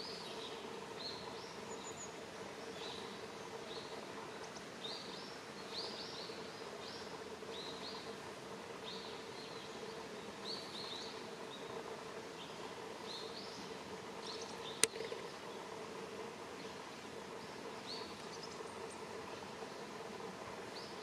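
Outdoor ambience of repeated short, high chirps from small birds calling, over a steady hiss and a faint low hum. A single sharp click sounds about three-quarters of the way through.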